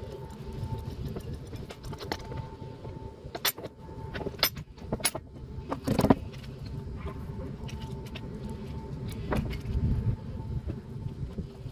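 A handful of sharp metallic clinks and knocks, the loudest about six seconds in, over a steady low hum.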